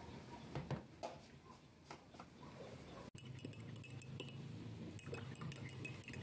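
Metal teaspoon stirring coffee in ceramic mugs, clinking lightly and repeatedly against the sides in the second half. Before that, a few soft knocks of kitchenware being handled.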